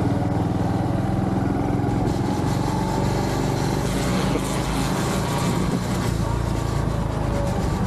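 Honda Trail 125's single-cylinder four-stroke engine running steadily while the bike is ridden, carrying a strange noise that the rider says is definitely not normal and cannot identify.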